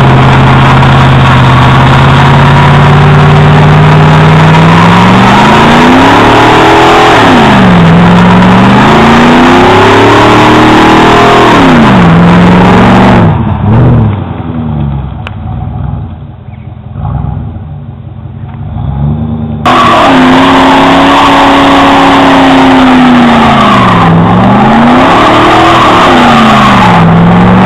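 A car engine revs hard through a burnout, its pitch climbing and falling again and again, over the rush and squeal of spinning rear tyres. The sound is quieter for several seconds in the middle, then comes back at full loudness.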